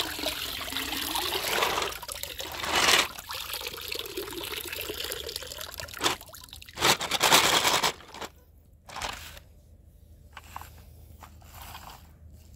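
Water pouring and trickling out of a plastic mesh basket of small toy cars as it is lifted from a tub, with two louder splashing surges, about three and seven seconds in. After that the water stops and there are only a few light clicks.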